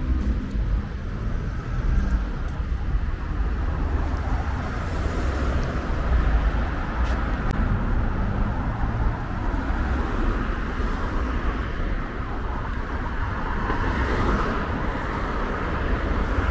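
Steady road traffic on a busy city avenue: cars and other vehicles driving past, with a deep rumble throughout.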